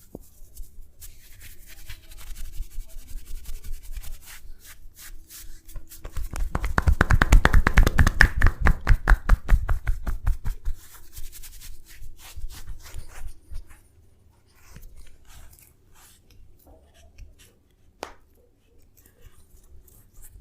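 Massage tapping: hands striking the body in rapid, even succession. It builds up about six seconds in, is loudest through the middle, then fades into softer scattered rubbing and one sharp click near the end.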